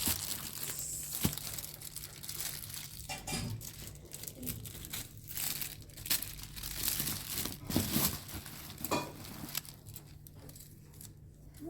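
Irregular crinkling and rustling of something being handled and crumpled, in short crackly bursts.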